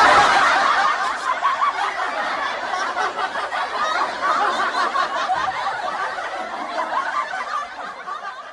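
Laughter sound effect: a crowd of people laughing together, starting suddenly and fading out near the end.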